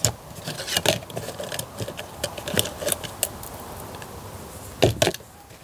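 Circuit boards clicking and clattering against each other and a plastic tub as a hand rummages through them and lifts one out, with a louder clatter near the end.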